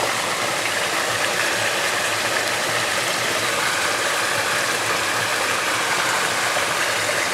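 River water flowing steadily, an even rushing hiss with no breaks.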